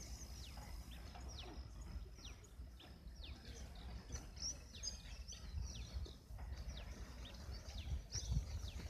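Birds calling outdoors: many short chirps that each sweep downward in pitch, a couple a second, over a faint low rumble.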